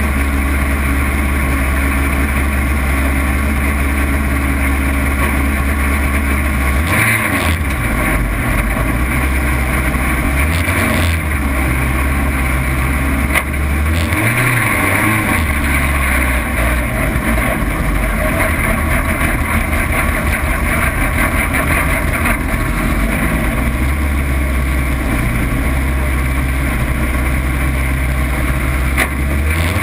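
Air-cooled VW Beetle flat-four engine of an autocross racer heard from inside the stripped cabin, running steadily for the first several seconds, then revving up and down and pulling away over dirt, with the engine pitch rising and falling through gear changes.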